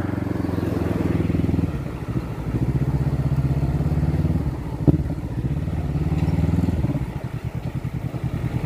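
Motorcycle engine running with a steady pitch in long stretches that shifts a few times, and a sharp click about five seconds in.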